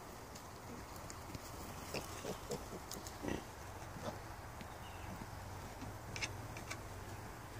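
Young Yorkshire piglets grunting: a run of short grunts between about two and three and a half seconds in, and another couple around six seconds.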